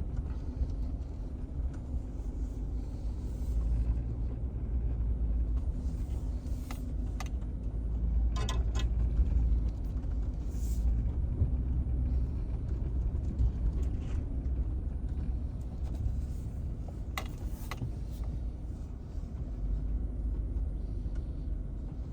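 A vehicle's engine running at low speed with a steady low rumble as it creeps down a muddy, slippery clay slope through brush. A couple of sharp knocks break in, near the middle and again later.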